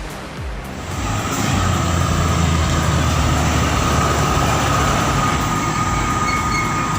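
A heavy machine's engine running steadily from about a second in: a low drone with a constant high whine over it.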